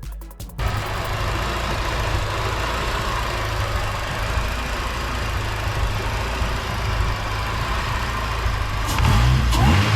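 Supercharged K24 four-cylinder engine in an Acura RSX idling steadily, then revved up and back down once near the end. Music cuts off about half a second in.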